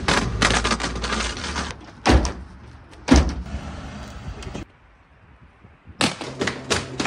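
An ABS plastic pistol safe being abused in quick cuts. First it scrapes and clatters across asphalt over a low engine rumble, then come two hard knocks about a second apart. After a brief hush, a quick run of sharp knocks starts near the end.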